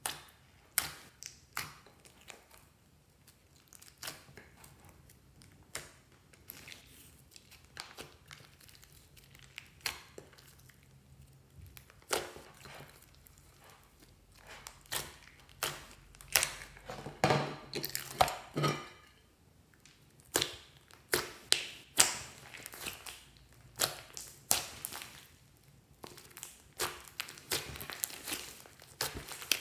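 Slime being poked, stretched and kneaded by hand, making irregular sticky clicks and pops that come thicker and louder about halfway through.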